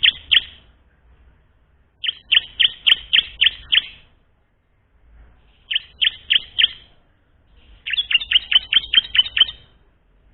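A ciblek (prinia) singing in phrases of quick, sharp repeated notes, about five a second. It sings one phrase at the start and three more about two, six and eight seconds in, with short pauses between them. The last phrase is faster. This is a young bird still learning its song.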